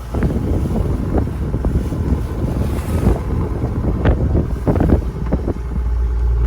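Wind buffeting the microphone over the low rumble of a boat's engine, with a few knocks about four to five seconds in.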